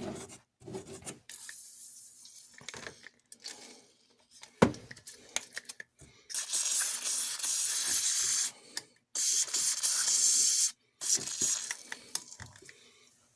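WD-40 aerosol can spraying in two long hisses of about two seconds each, with a fainter short hiss earlier, applied to clean old gunk out of a model train locomotive's motor truck. A sharp click about four and a half seconds in.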